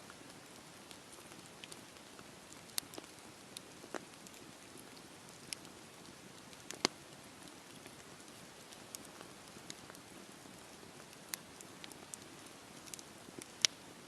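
Campfire burning, a soft steady hiss broken by scattered sharp crackles and pops of burning wood, two of them louder than the rest.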